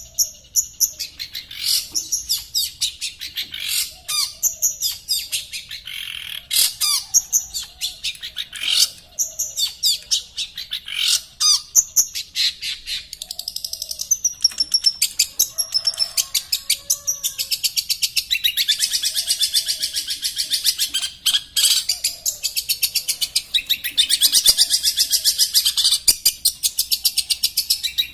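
Caged long-tailed shrike (cendet) singing: a string of sharp, high calls and whistles, several a second, that turns about halfway into fast, continuous chattering.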